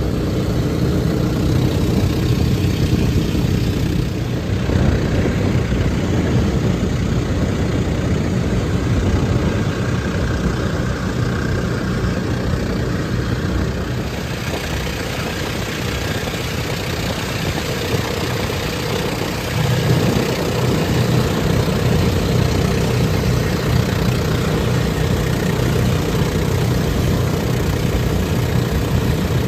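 Motorized outrigger boat (bangka) engine running steadily while under way: a loud, even, low drone that shifts slightly in tone a few times.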